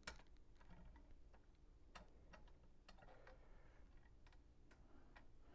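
Near silence with a few faint, scattered ticks and clicks over a low steady hum.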